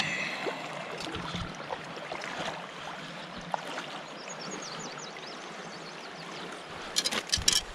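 Shallow river current running and lapping around a wader's legs. Near the end comes a quick run of sharp splashes and knocks.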